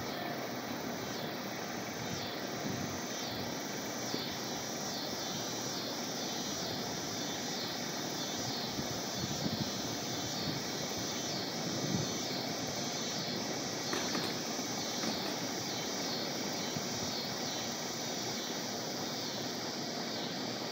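Insects in the trees calling in a rhythmic chorus, a high pulsing note repeating about once a second, over a steady low rumble of wind and distant background noise.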